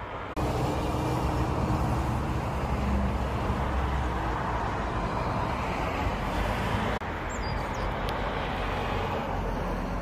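Steady road traffic noise: cars driving along a busy road, a continuous low rumble of engines and tyres, with a brief break about seven seconds in.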